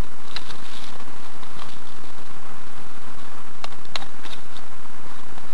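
Crackling rustle of dry dead leaves and clothing close to the microphone, with a few sharp clicks about half a second in and a quick cluster of them around four seconds in.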